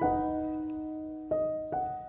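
Background piano or electric-piano music, sustained notes with new ones struck twice in the second half, over a thin, very high steady tone that rises slightly in pitch.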